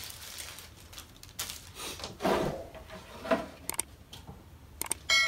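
Plastic parts of a foldable push-up board handled and set down on a wooden table: irregular rubbing and scraping with a few sharp clicks near the end. A chime begins at the very end.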